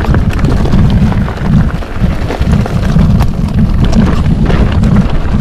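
Wind buffeting an action camera's microphone during a mountain-bike ride, a steady low rumble, with frequent clicks and rattles from the Commencal Meta TR 29 full-suspension bike and its tyres on the trail.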